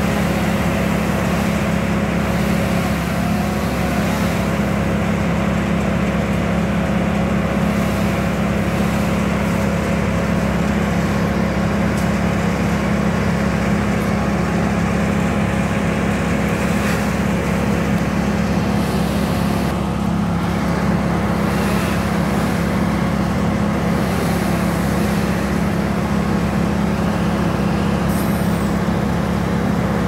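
A large work-vehicle engine running steadily at constant speed: a low, even drone that does not rise or fall.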